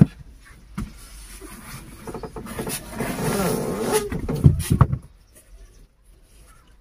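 An elephant's trunk rummaging through bananas on a pickup truck's vinyl bench seat, rubbing and scraping against the seat and door. From about two to four seconds in there is a wavering, pitched squeak-like sound, and a few knocks come just before five seconds as the trunk pulls back.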